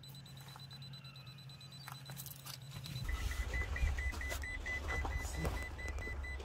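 Faint hum, then about three seconds in a low steady rumble starts, with a quick, evenly repeating high electronic beep over it.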